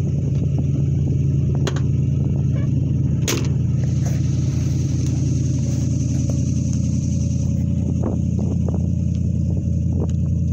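1955 Buick Special's V8 idling steadily. A few sharp knocks and clicks sound over it, the loudest about three seconds in.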